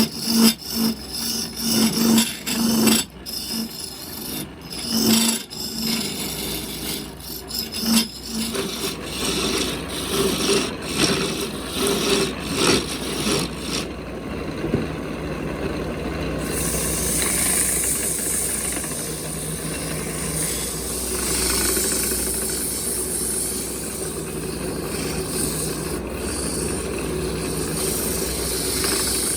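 Wood being worked by hand with rough, irregular rubbing strokes, like rasping or sanding. About halfway through, a steady hissing noise takes over.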